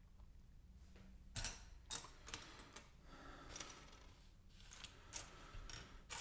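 Faint, irregular small clicks and rustles of loose plastic LEGO pieces being handled and shifted, about nine in all.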